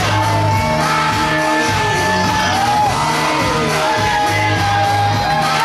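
Song with a singing voice and a steady bass line, played loud and echoing through a large hall.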